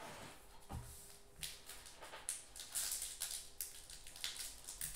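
Foil wrapper of a 2019 Panini Majestic football card pack crinkling and tearing softly as it is pulled open by hand, after a light thump a little under a second in.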